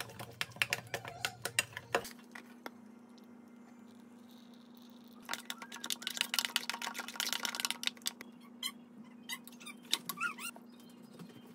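A metal spoon stirring thick, wet chili-pepper paste in a stainless steel bowl, with quick clicks and scrapes against the bowl. A denser run of stirring comes in the middle, with a few scattered clicks near the end, over a faint steady hum.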